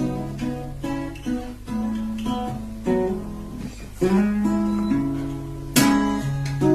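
Acoustic guitar played fingerstyle: picked notes and chords ring out one after another, with a sharp strummed chord near the end.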